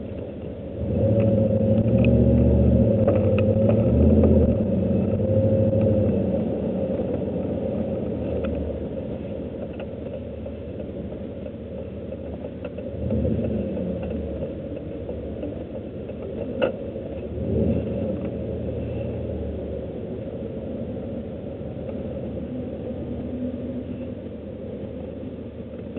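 Truck engine heard from inside the cab, speeding up under throttle from about a second in for several seconds, then easing to a steadier drone. Two shorter surges of throttle follow later.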